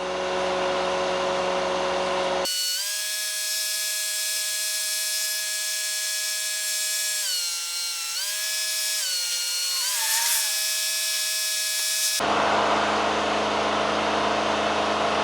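Cadillac Northstar V8 running during the head gasket sealing process, sped up by fast-forwarding so it sounds like a high, drill-like whine, with a few brief dips in pitch in the middle. At the start and near the end it gives way to a steady noisy running sound with a low hum.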